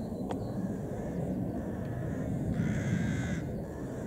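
A crow gives one harsh caw about two and a half seconds in, over a steady low rumbling noise.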